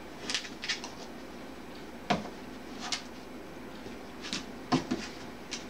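A few light, scattered knocks and taps from a puppy's paws stepping on a plastic aerobic step platform.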